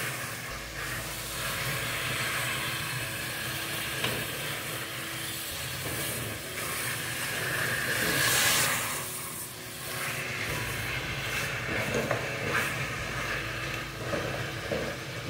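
Chicken pieces frying in oil and turmeric in a pot, stirred with a spatula: a steady sizzling hiss with a few light knocks, and a louder rush of sizzle about eight seconds in.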